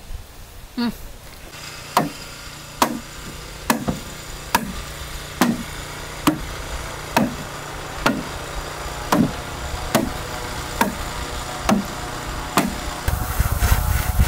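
Machete chopping bamboo: about a dozen sharp, evenly paced strikes, roughly one a second.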